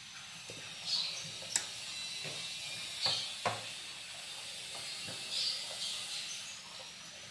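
Spatula stirring and scraping macaroni in a nonstick frying pan, with a few sharp knocks against the pan. Short high chirps come about every two seconds, and a faint steady high tone sits underneath.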